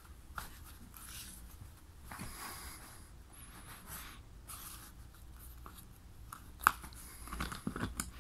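Kitten's claws scrabbling and scraping on a cardboard box and a cloth sock, a few separate rustling scratches. Near the end comes a sharp tap, then a quick run of crackling scratches.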